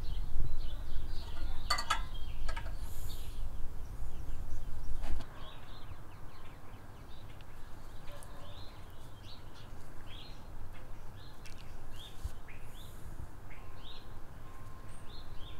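A low rumble and a couple of sharp metallic clicks for about the first five seconds as a wrench tightens a brass hose barb fitting on a steel vacuum canister. Small birds chirp over it, with short, repeated high chirps.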